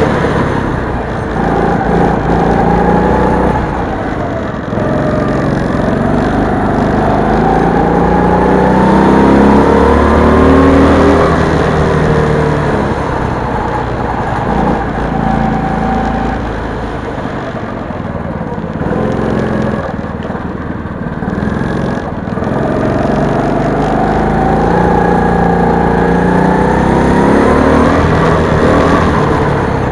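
Small go-kart engine heard from the driver's seat, running hard with its pitch rising and falling again and again as the kart accelerates and lifts off through the laps.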